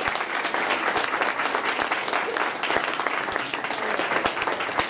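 Audience applauding: many people clapping at once, steady throughout, with a few voices mixed in.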